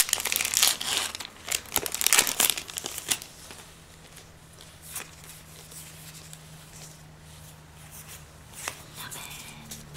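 Foil wrapper of a Yu-Gi-Oh booster pack crinkling and tearing open during the first three seconds or so. After that, quieter soft clicks and slides as the pulled cards are flipped through by hand.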